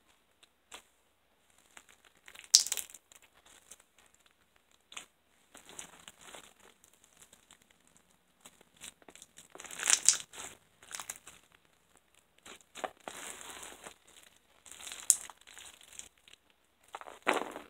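Hands squeezing, stretching and pressing beaded slime: irregular squishing noises in short bursts, a few louder than the rest.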